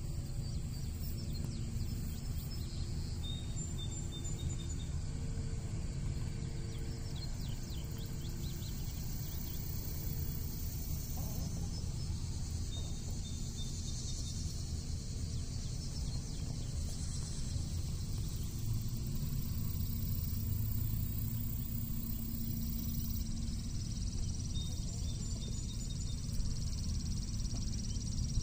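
Outdoor ambience around a backyard chicken flock foraging in grass: a steady low rumble with faint, high bird chirps now and then.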